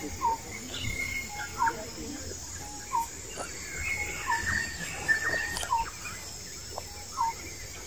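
A bird calling over and over, a short rising note repeated about every second and a half, with fainter chirps from other birds.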